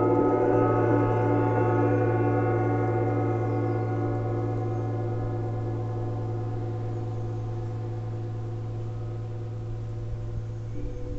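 Large hanging gong played with soft felt mallets, ringing with a dense wash of overtones that slowly fades, its lower tones pulsing with a slow waver. Light mallet strokes come back in near the end.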